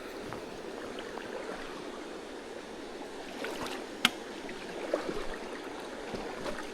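Mountain stream running over boulders, a steady rush of water. A single sharp click about four seconds in, with a few fainter ticks shortly after.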